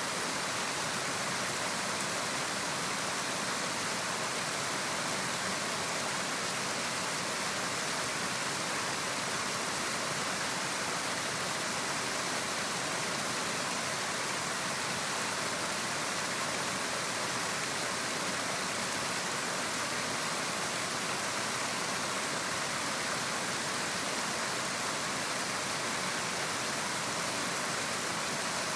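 A river flowing: a steady, even rush of water with no change in level.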